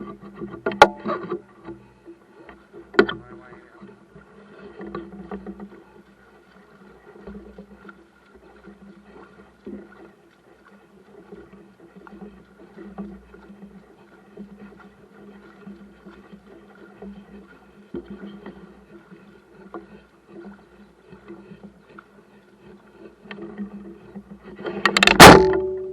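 Steady mechanical hum on a small boat, with a few sharp knocks near the start and a loud knock near the end that leaves a brief ringing tone.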